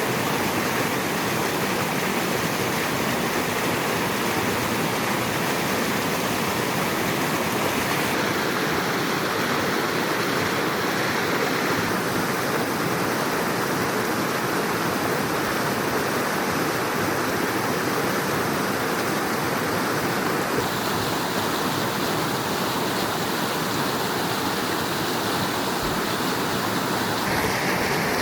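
Mountain stream water rushing over rocks, a steady loud noise whose tone changes abruptly a few times.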